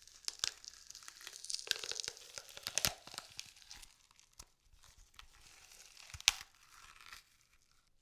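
A frozen green pepper being crushed and broken apart, giving a dense crackling and crunching that thins out after about three seconds, with sharp cracks about three seconds and six seconds in.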